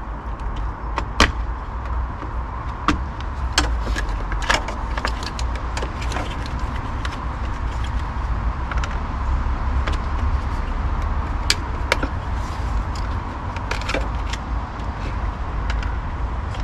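Scattered sharp plastic clicks and snaps as the cover of a Volkswagen Golf Mk5 door lock unit is worked off its tabs, over a steady low rumble.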